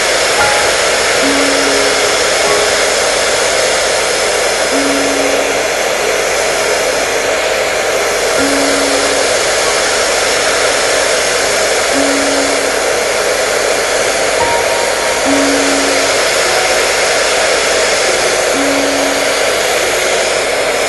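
Hair dryer running steadily: an even, constant whoosh with no change in speed. A short low tone recurs about every three and a half seconds underneath it.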